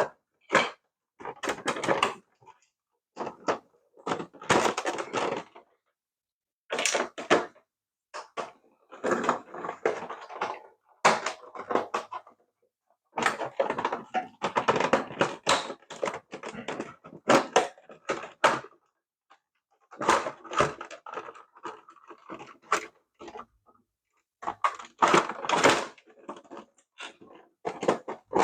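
Irregular clicks, knocks and rattles of small plastic toy-car parts being handled and taken apart, coming in short bursts with silent gaps between them.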